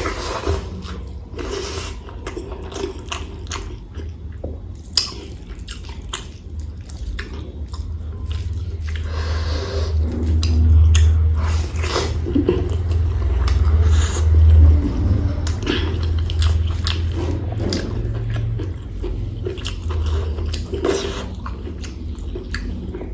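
Close-miked chewing and biting of rice and curry: wet mouth clicks and smacks over a low thudding of the jaw, heaviest around the middle.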